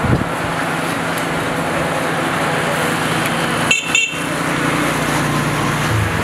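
Steel kebab skewers clinking against the grill, two sharp metallic clinks close together about four seconds in, and a low knock at the very start, over a loud, steady background noise.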